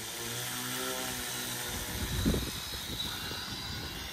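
Brushless electric motor (Twisted Hobbys 2814 2050KV) turning a 12x6 propeller on an RC model plane, a steady whine with propeller buzz, and a low thump about two seconds in.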